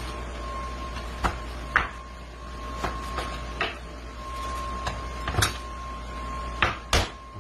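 Knife and beef shank knocking against a plastic cutting board as the meat is cut and handled: several sharp, irregular knocks. A faint steady high hum runs underneath.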